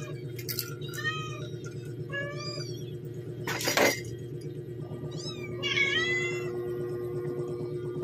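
Philippine hanging parrots (colasisi) giving short, high-pitched calls in a loose series, some bending down in pitch, a few a second apart. A brief loud noisy burst comes a little before the middle.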